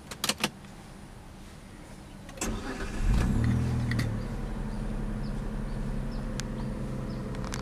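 A few sharp clicks, then the 2002 Proton Perdana's V6 engine is cranked and catches about three seconds in. It flares in revs for about a second, then settles to a steady fast idle.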